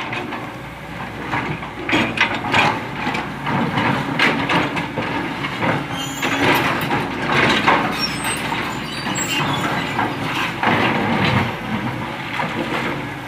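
Excavator loading sand and stones into a truck: irregular clattering and knocking of rock over a steady noisy rush, with a low engine hum underneath.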